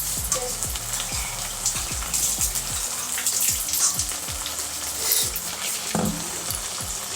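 Potatoes sizzling in mustard oil in a pan on the stove, a steady crackle with many small pops, as poppy-seed paste goes in.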